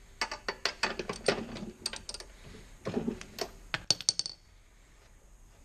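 Rapid metallic clicking of a socket wrench working the spark plug loose on a Briggs & Stratton lawn mower engine. About three to four seconds in comes a metallic clatter with a short ring as the wrench is put down on the concrete floor.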